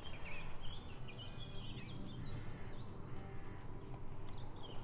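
Small birds chirping and singing in short broken phrases over a steady low background rumble.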